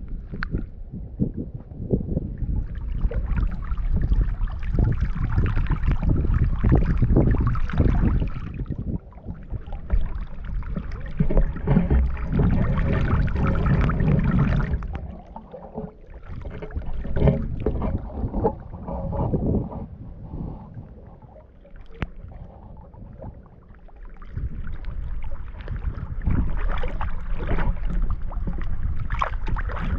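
Water sloshing and splashing around legs in rubber waders wading through deep water, coming in long surges with each stretch of wading and easing off in between, over a low rumble.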